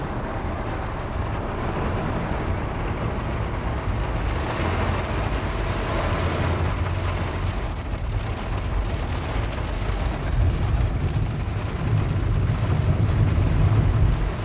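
Rain and car traffic on a flooded street: tyres swish through standing water over a low engine rumble, which grows louder near the end as a vehicle comes close.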